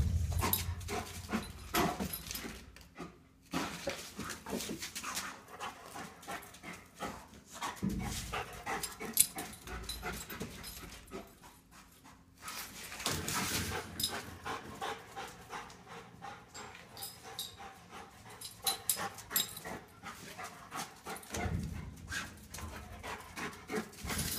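A dog panting while it paws and scrabbles at a tennis ball wedged under a metal fuel tank, with many short scrapes and knocks throughout.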